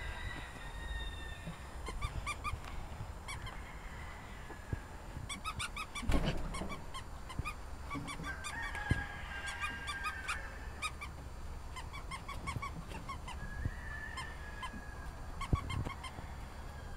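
Young puppies squealing and whining: quick runs of short, high squeaks and a few longer whines, with a louder knock about six seconds in.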